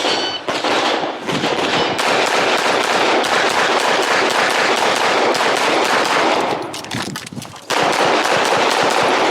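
Rapid strings of gunshots, several a second, in a USPSA practical-shooting stage run, with a short break about seven seconds in before the firing resumes.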